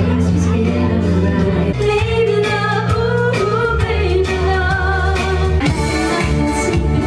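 A woman singing live into a handheld microphone over amplified backing music.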